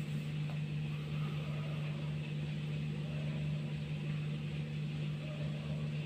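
Hisense dishwasher running in the last minute of its cycle: a steady low motor hum with a light hiss over it.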